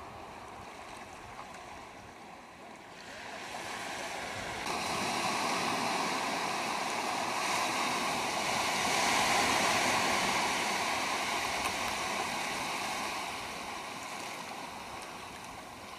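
Small surf breaking and washing over the shallows at the water's edge. The rush of water swells from about four seconds in, is loudest around the middle, and fades toward the end.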